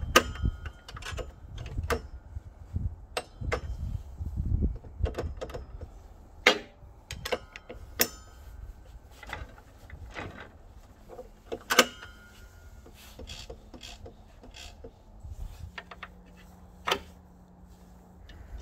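Irregular metallic clicks, knocks and clinks of steel parts being fitted into a Bosch GTS 635-216 table saw's blade opening, some ringing briefly, with low handling bumps in the first few seconds.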